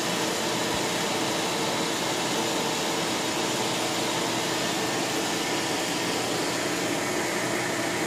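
Steady whirring hiss with a faint hum, unchanging throughout: the vacuum pump keeping the fusor's glass bell jar evacuated while it runs.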